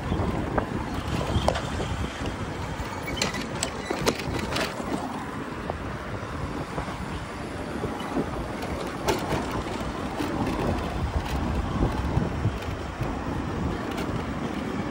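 Wind buffeting the microphone of a camera on a moving e-bike, over a steady rumble of tyres on the road, with a few light clicks about a quarter of the way in and again past halfway.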